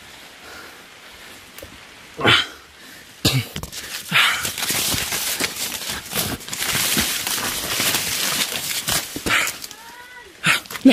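Dry corn leaves and stalks rustling and crackling close to the microphone as someone pushes through a cornfield, with a loud bump about two seconds in and two more near the end.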